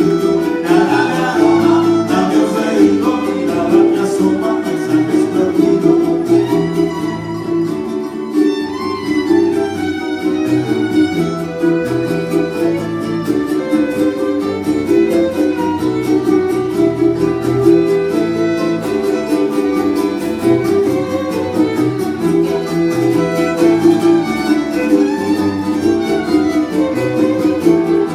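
Instrumental music led by violin over guitar, with a repeating bass line.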